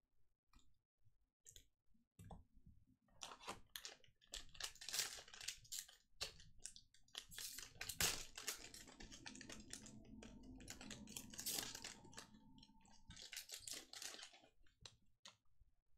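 Crinkling and crackling of a 2021 Mosaic Football hobby pack's wrapper being torn open and handled, with cards rustling, in quick irregular bursts from about two seconds in until near the end.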